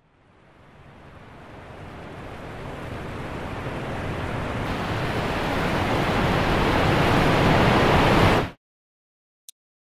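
A steady rushing noise fades in from silence and swells louder for about eight seconds, then cuts off abruptly; a single brief click follows about a second later.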